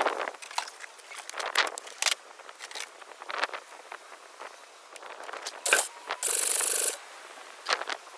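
Scattered metallic clinks and rattles of tools or parts being handled, with a sharp knock and then a loud, steady hissing burst of under a second near the end.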